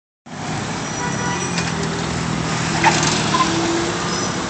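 Cars driving slowly past at close range, engines running and tyres rolling, over a steady wash of city traffic. A brief knock sounds about three seconds in.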